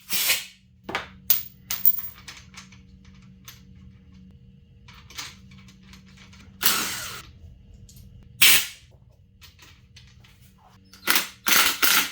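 Workshop clatter from hand tools and metal parts: scattered sharp clicks and metal knocks, with a couple of short hissing bursts.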